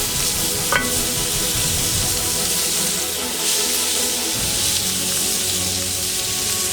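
Food sizzling as it fries, a steady hiss, with one short clink about a second in.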